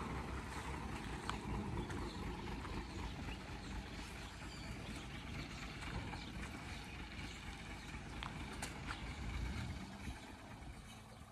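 A vehicle engine running with a steady low rumble and scattered sharp clicks and knocks, dropping away about ten and a half seconds in.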